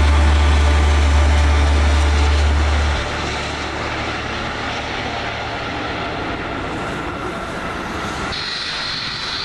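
Jet airliner engine noise from a Boeing 737-800 landing: a steady, broad roar. A low steady hum runs under it for the first three seconds, then stops, and a high steady whine joins near the end.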